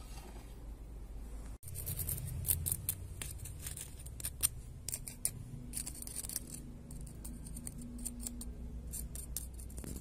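A stiff brush scrubbing dried mud off a phone's circuit board, a quick run of short scratchy strokes that starts just after a brief break about one and a half seconds in.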